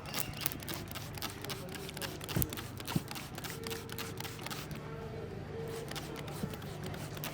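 Hands tapping and slapping on a head during an Indian head massage: a quick, irregular run of sharp slaps, over a steady low hum.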